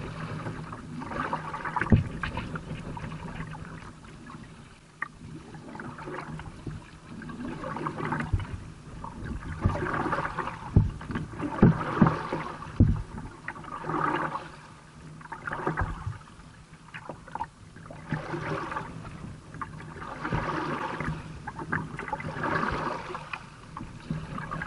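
Kayak paddling through choppy water: a splash from a paddle stroke about every two seconds, with water washing at the bow and a few sharp knocks against the plastic kayak.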